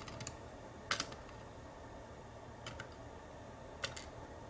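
Small metal lock pins and sleeves being picked up, flipped around and set down into order, making light, scattered clicks, several of them in close pairs, with the loudest about a second in.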